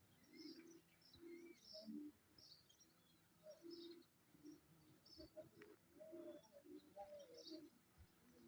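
Faint bird sounds: short high chirps repeated throughout, with soft low cooing notes under them.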